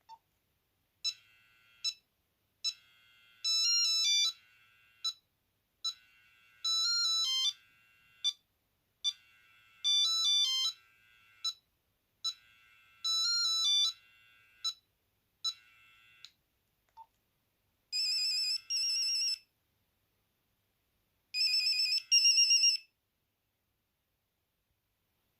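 Nokia 8210 monophonic ringtone playing a beeping melody: a short phrase of rising and falling notes repeats about every three seconds and stops about 16 seconds in. Near the end come two short two-part beep tones.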